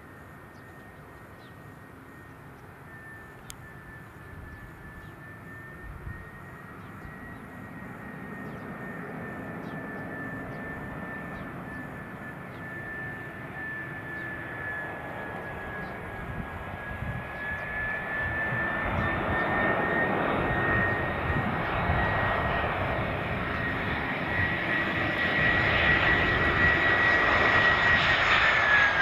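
An Airbus A320-214's twin CFM56 turbofan engines on final approach: a steady high whine over a rumble, growing steadily louder as the airliner nears. At the very end the whine drops in pitch as it passes.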